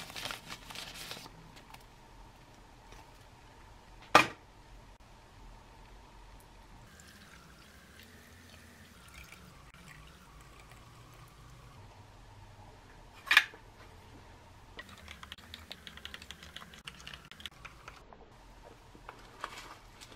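A tea bag packet crinkled open, then water poured faintly from a metal cup into a glass over a tea bag. Two sharp knocks about nine seconds apart stand out as the loudest sounds, and a foil food pouch rustles near the end.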